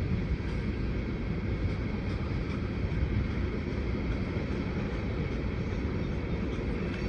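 Freight cars of a long Union Pacific manifest train rolling past, a steady low rumble.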